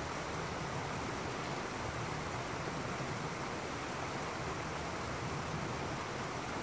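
Small rocky stream running over a little waterfall: a steady, even rush of water.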